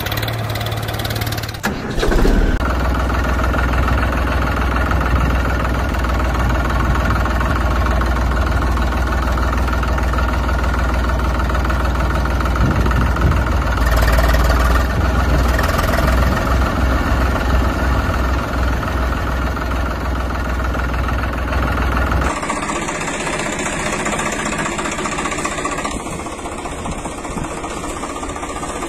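Tractor engine running steadily with a deep rumble. It shifts about two seconds in, and about three quarters of the way through it changes to a lighter engine sound without the deep rumble.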